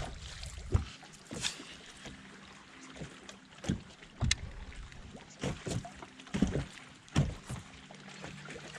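Irregular light knocks and clicks on a fishing boat, about eight spread through a few seconds, over a faint steady hum.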